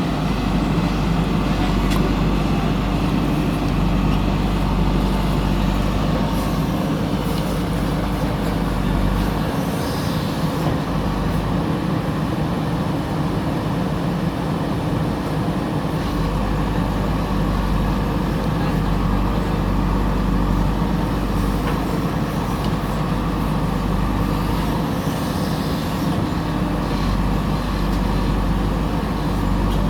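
Backhoe loader's diesel engine running steadily under work. Its note shifts a few times, dropping about a third of the way in and again near the end.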